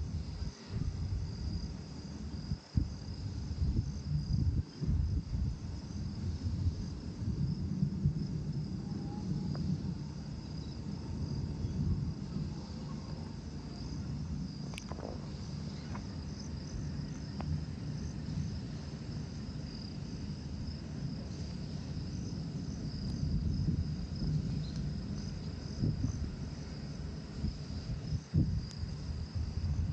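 Crickets chirping steadily in a fast, even trill over a low, uneven rumble that swells and fades.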